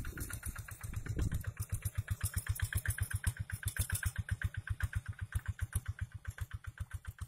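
Single-cylinder diesel engine of a two-wheel hand tractor chugging in quick, even beats while pulling a plow through dry soil. The sound fades gradually toward the end as the machine moves off.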